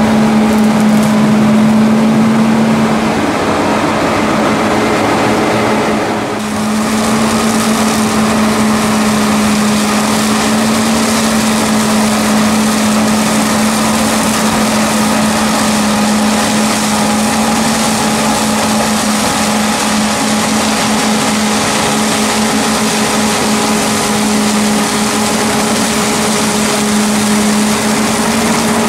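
Fendt 720 Vario tractor and its Herder flail mower and suction combination running steadily while mowing a ditch bank: a continuous drone with a strong steady hum over a wide hiss. The hum drops away about three seconds in and comes back at about six seconds.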